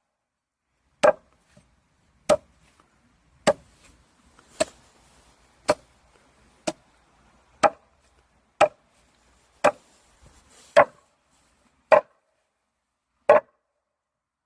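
Axe chopping wild kudzu root: twelve sharp, separate chops, about one a second.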